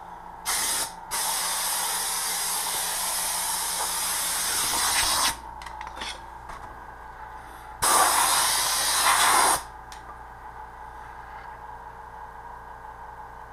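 Pistol-grip air blow gun blasting compressed air regulated to 80 psi: a short burst, then a long hiss of about four seconds, and later another blast of about two seconds.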